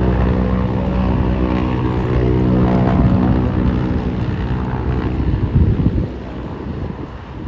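B-29 Superfortress's four Wright R-3350 radial engines running with their propellers turning, a steady multi-toned drone. Near the end a short burst of loud low rumble comes, then the sound drops off sharply.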